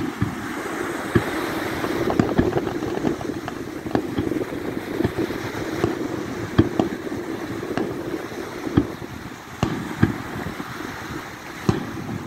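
Aerial firework shells bursting, a dozen or so sharp bangs at irregular intervals over a steady background rush.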